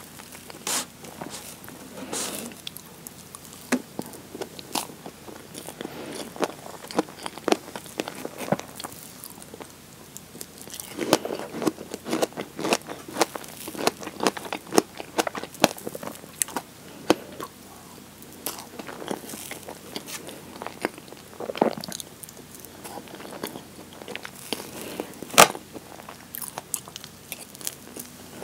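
Close-miked eating of strawberry cream shortcake: wet chewing and mouth sounds with many small clicks, and a metal fork working into the soft sponge and cream. One sharper click stands out near the end.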